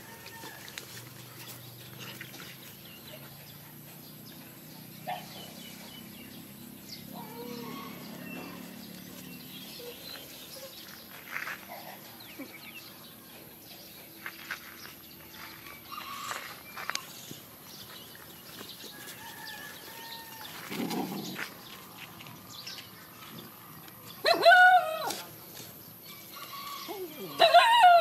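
Dog barking in two loud bouts near the end, after a long stretch of only faint, scattered outdoor sounds.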